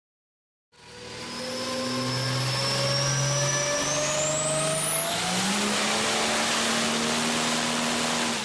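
Turbocharged diesel pickup making a pull on a chassis dyno. The engine starts sounding suddenly under a second in and runs up under load, with a high turbo whistle climbing steadily in pitch. About five seconds in it reaches a loud, steady full-power note and holds it until the end.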